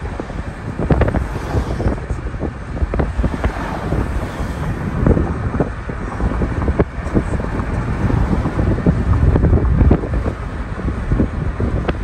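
Wind buffeting the phone's microphone in uneven gusts, over the sound of road traffic passing.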